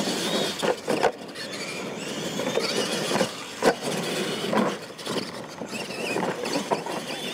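Radio-controlled monster trucks racing: a high whine from their motors and gears that rises and falls, with a few sharp thumps as they hit and land off the ramps.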